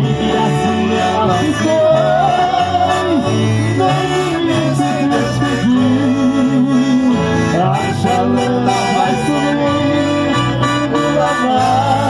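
Accordion playing a melody over a steady, regularly changing bass line, with a guitar accompanying.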